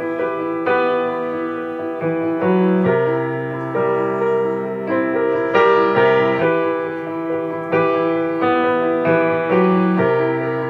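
Soul-style instrumental music: keyboard chords with a piano-like sound, each held and changing about every second, over a low bass line.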